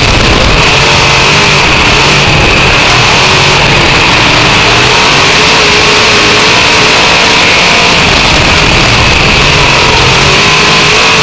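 Dirt-track race car's V8 engine running hard, heard from inside the cockpit, very loud and constant. Its pitch swells and eases slightly as the throttle is worked around the track.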